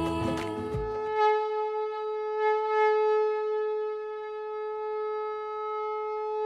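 A single long, steady note on a wind instrument, held for about five seconds and bending in pitch as it ends, after a stretch of soundtrack music fades out about a second in.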